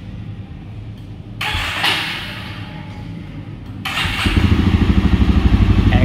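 Jawa 42 Bobber motorcycle being started: the starter cranks for about two seconds, then the single-cylinder engine catches about four seconds in and runs loud, with a fast, even exhaust beat.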